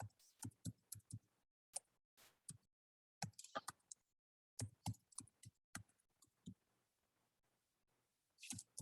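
Computer keyboard typing: faint, sharp keystrokes in short irregular runs with pauses between them, as details are entered into a form.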